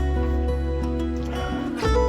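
Background instrumental music over a sustained low bass, which drops out briefly near the end before resuming.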